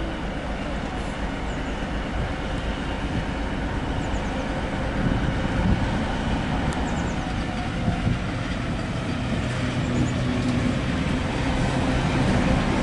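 Diesel engine of a BR232 'Ludmila' locomotive, a 16-cylinder Kolomna diesel, running as the engine moves slowly at shunting speed, growing louder as it comes nearer. A few sharp knocks come through about five to eight seconds in.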